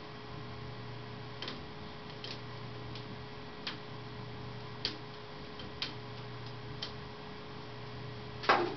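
Light sharp clicks at irregular intervals, roughly one a second, over a low steady hum that fades in and out, with one louder knock near the end.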